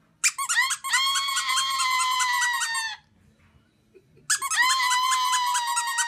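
Amazon parrot calling: two long, high-pitched calls about a second and a half apart, each starting with a quick stuttering warble and then held on a steady note.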